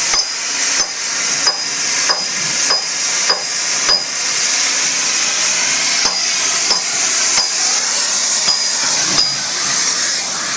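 A hammer striking steel in two runs of sharp, ringing blows about one and a half a second, with a pause of about two seconds midway. A steady hiss, likely the cutting torch's gas flame, runs underneath.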